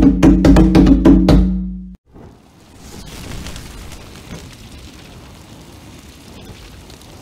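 Closing bars of a drum-backed ponto (umbanda devotional song): evenly spaced drum hits over a held low chord, fading out about two seconds in. After a short gap, a fainter, steady hiss with occasional small pops follows.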